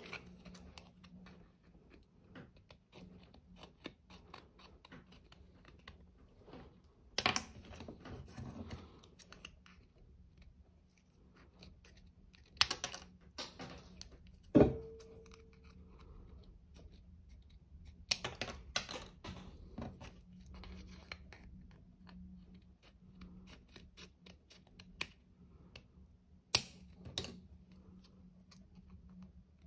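Scissors cutting up a plastic bank card: a run of small clicks and crunches as the blades work through the card, with several sharp, louder snips as pieces are cut through.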